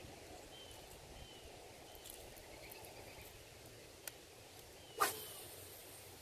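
Faint outdoor background with a few short high chirps; about five seconds in, a sharp click and a brief whirr as a baitcasting rod and reel is cast.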